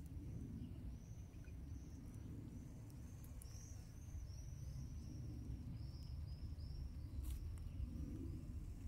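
Outdoor pond ambience: a steady low rumble with a run of short, high chirps repeating about twice a second, and a single sharp click about seven seconds in.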